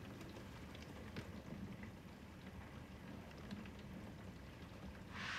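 Quiet room tone with a low steady hum and faint, scattered small ticks. Near the end, a dish towel starts rubbing against a glass bowl.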